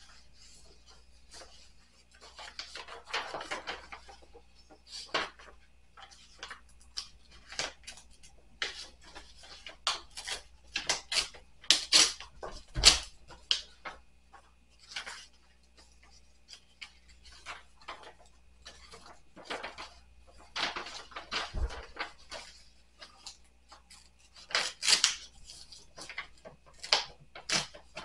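Paper mail being handled on a table: envelopes and bills rustling and crinkling in short irregular spells, with scattered small taps and clicks. Two sharper knocks on the table, one about halfway through and one later on.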